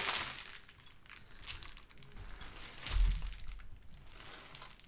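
Faint, scattered crinkling of plastic bubble wrap as a glass cup is unwrapped, with a single low bump about three seconds in.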